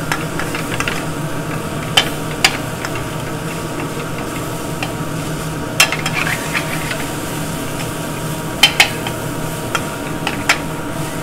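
Chicken cutlets and garlic sizzling in an aluminium sauté pan on a gas burner, over a steady low hum. Metal tongs clink sharply against the pan now and then as the pieces are moved, twice in quick succession near the end.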